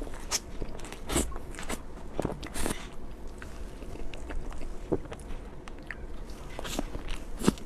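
Close-miked eating of crepe cake: biting and chewing, with irregular wet mouth clicks and smacks.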